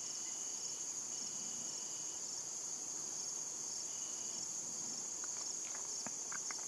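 Steady chorus of field insects such as crickets trilling, with a second, lower trill coming and going in stretches of about a second. A few faint clicks near the end.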